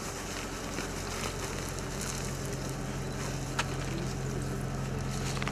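A vehicle engine idling steadily with a low, even hum, with a couple of short clicks over it.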